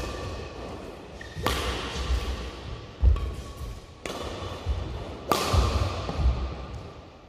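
Badminton racket strikes on a shuttlecock, two sharp cracks about four seconds apart, echoing in a large hall. Between them come dull thuds of footfalls on the court floor.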